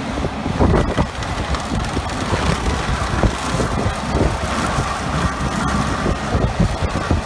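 A 100 hp alpine tractor running under load, driving a Seppi mulcher that is tearing up and shredding gorse bushes, roots included. Irregular cracks and snaps of woody stems sound over the steady rumble.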